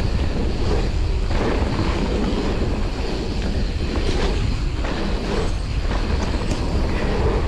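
Mountain bike riding fast down a dirt trail, heard from a handlebar-mounted camera: a steady rumble of the tyres on dirt with the chain and frame rattling over bumps.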